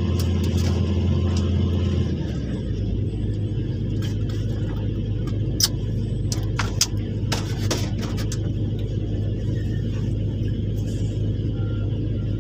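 A large diesel excavator's engine running steadily with a low drone, heard from the operator's cab; its note shifts about two seconds in. A few short sharp clicks come around the middle.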